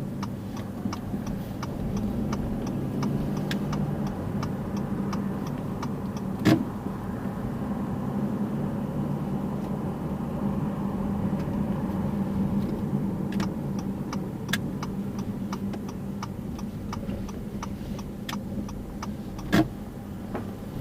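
A car driving slowly, heard from inside the cabin: a steady engine and road hum with light, evenly spaced ticking. Two sharper knocks stand out, one about a third of the way in and one near the end.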